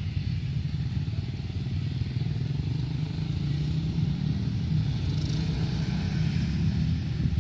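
A motorcycle engine idling nearby, a steady low pulsing rumble.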